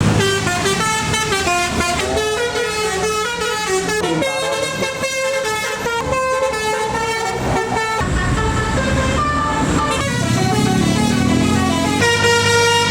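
Tour bus 'telolet basuri' multi-note musical horn playing a melody of quick, changing notes. The bus engine runs underneath and revs up near the end.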